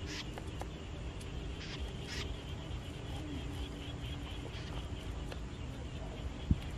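A knife working small fish on the ground: scattered light scrapes and taps over a steady low rumble, with one sharp knock near the end.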